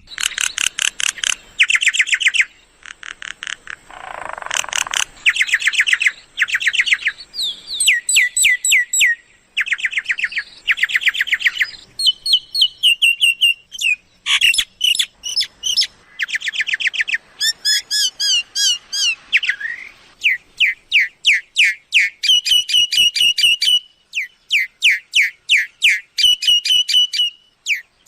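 Myna calling: runs of rapid, repeated high chirping and whistling notes, each run lasting one to two seconds, with short breaks between them.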